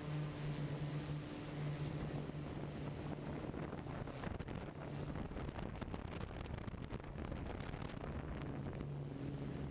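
Camera drone's propellers humming steadily, with wind rushing over its microphone. The hum fades and returns several times through the middle.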